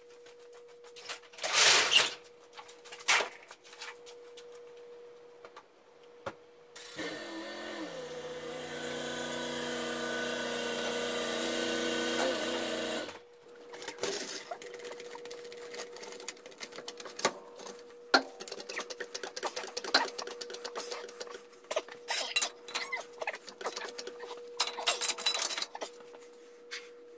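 Metal clanks, knocks and scraping from a floor jack and jack stand being set under a pickup's axle, with two loud knocks near the start. Midway a motor starts, its pitch dipping briefly, then runs steadily for about six seconds before cutting off. A faint steady hum lies underneath.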